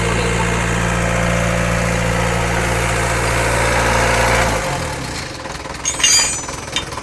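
Hydraulic excavator's diesel engine running steadily, then shut off about two-thirds in and winding down to a stop. A sharp metallic clink follows near the end.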